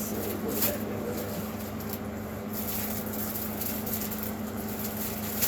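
A steady mechanical room hum with a couple of soft rustles as a packaged t-shirt is handled, about half a second in and again near the end.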